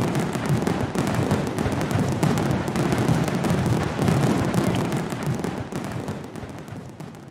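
Fireworks display: continuous bangs and dense crackling of bursting aerial shells, fading out over the last couple of seconds.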